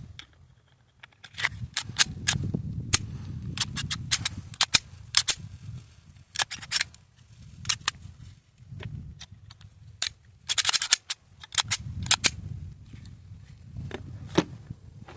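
Sharp metallic clicks and snaps of a Glock pistol's parts being worked by hand, irregular, with a quick cluster of clicks about ten seconds in and low handling rumble between them.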